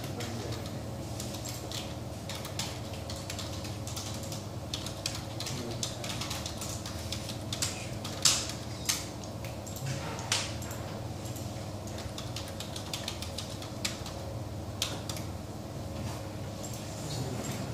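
Computer keyboard typing: irregular key clicks, densest in the first half, with a few louder strokes around the middle, over a steady low hum.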